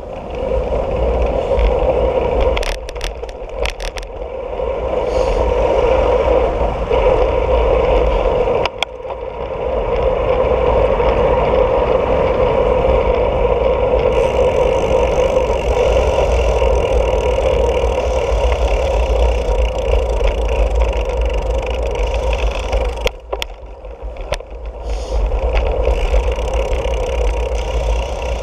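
Riding noise from a bicycle with a handlebar-mounted camera: wind rushing and buffeting on the microphone, with tyre hum and rattling from the bike. The noise drops away briefly three times, about three seconds in, nine seconds in and a little past twenty-three seconds.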